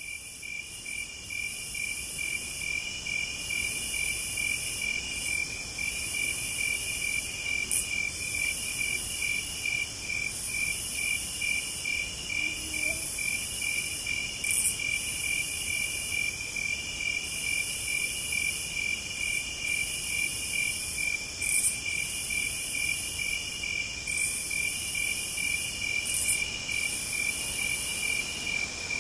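Crickets singing: a steady, fast-pulsed trill under a higher buzzing song that comes in phrases of about a second and a half with short gaps, with a few sharp clicks now and then.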